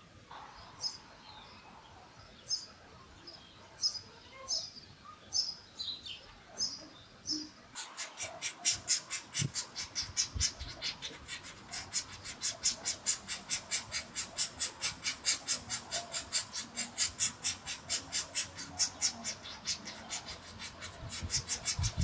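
Golden-tailed woodpecker nestlings begging at the nest hole: thin, high, falling calls about twice a second, then from about 8 s in a loud, rapid, harsh run of calls, about four a second, as an adult feeds them.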